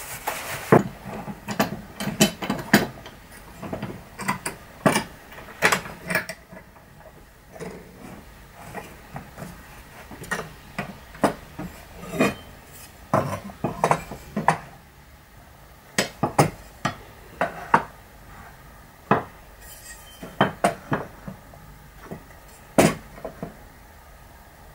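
Metal corner clamps and a wooden frame being handled on a wooden workbench: a run of irregular sharp clinks and knocks as the clamps are set down and fitted onto the frame's corners.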